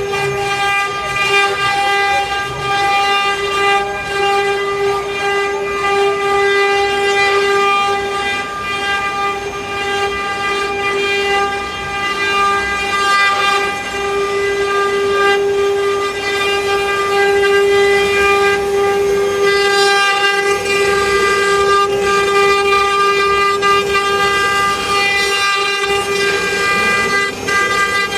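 CNC wood-carving router's spindle running with a steady high whine, over a rougher noise that swells and fades.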